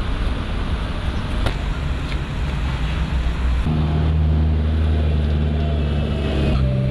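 Street traffic noise with a low rumble. About three and a half seconds in it gives way to the steady low hum of a running engine.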